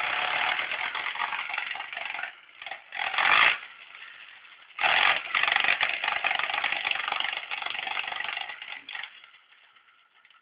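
HPI Savage Flux HP brushless electric RC monster truck making a rattling, grinding noise under throttle, in three bursts: one of about two seconds, a short sharp blip around three seconds in, then a longer one of about four seconds. This is the strange noise it makes when accelerating, the sign of a drivetrain or motor fault.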